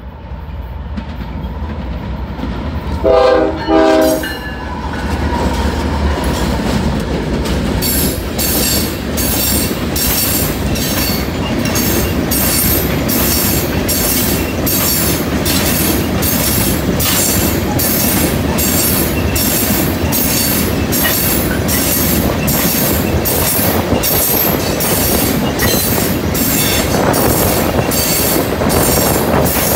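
A BNSF freight train's locomotive horn sounds two short blasts about three seconds in as the diesel locomotives approach with a low rumble. From about eight seconds a long string of open-top rock cars rolls past, their wheels clicking over the rail joints in a steady, rhythmic clickety-clack.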